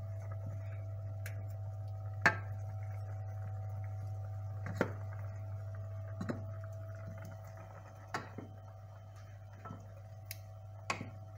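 Spoon stirring a milk sauce in a metal saucepan, clinking sharply against the pan about five times, over a steady low hum.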